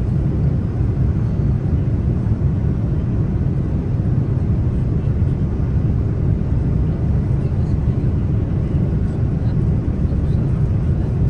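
Steady low cabin roar of an Airbus A330-300 in flight: engine and airflow noise heard from inside the passenger cabin.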